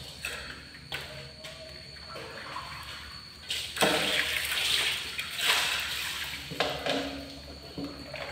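A rushing, water-like noise, like a toilet flushing, that rises sharply about three and a half seconds in, swells again a couple of seconds later and fades after about three seconds. A faint steady high whine runs underneath.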